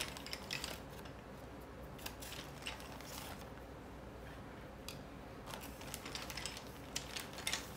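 Colored pencil rubbed across paper in short scratchy strokes, coming in a few bursts with pauses between.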